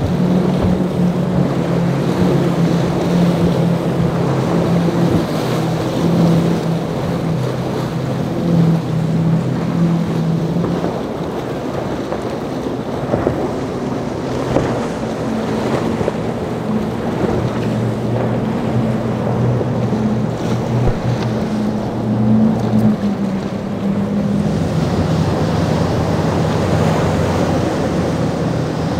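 Outboard engines of boats running at speed, quad Mercury Racing 450Rs on the first boats: a steady engine drone over the splash and hiss of hulls cutting through choppy water, with wind on the microphone. The engine note shifts twice as different boats pass.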